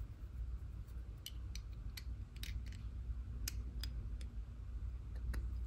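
Small, sharp metallic clicks, spaced unevenly, as a hex key seats in and turns the small cap screws that hold the top plate onto a steel lathe crotch center.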